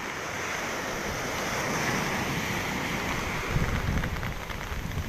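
Rough storm surf: heavy waves breaking and washing up the beach in a steady roar of water. Gusts of wind buffet the microphone with low rumbles in the second half.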